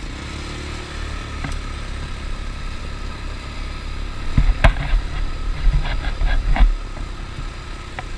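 ATV engine running steadily, with a cluster of heavy low thumps and a few short sharp sounds about halfway through.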